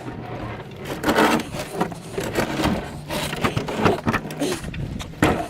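Refrigerator on a hand truck rattling and clattering as it is wheeled over rough ground and rocks, with a run of irregular knocks.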